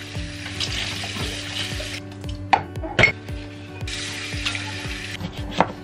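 Tap water running into a stainless steel sink during hand dishwashing, with a few sharp clinks of plates and containers knocking together. The water stops about two seconds in, with two clinks while it is off, then runs again briefly before another clink near the end.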